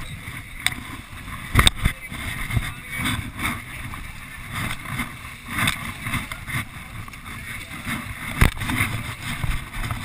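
Wind buffeting the microphone over the wash of rough sea along a fishing boat's side, with a few sharp knocks, the loudest about a second and a half in and again near the end.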